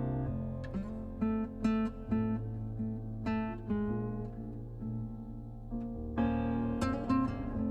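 Instrumental break of a recorded ballad: acoustic guitar picking single notes over a held bass line, with a fuller strummed chord about six seconds in, played back over a hi-fi loudspeaker system.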